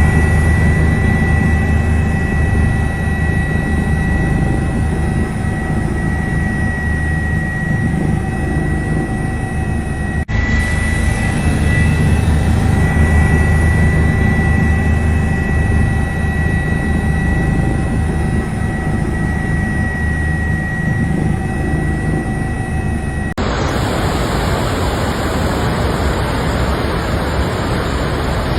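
Aircraft engine running steadily: a loud low rumble with a steady high whine, interrupted by a cut about ten seconds in. Near the end it gives way to an even rushing noise like fast water.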